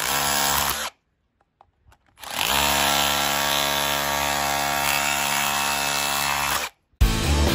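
Cordless 20V hammer drill with a chisel bit hammering against a concrete slab: a short burst of under a second, a pause of about a second, then a steady run of about four and a half seconds that cuts off. A different sound starts just before the end.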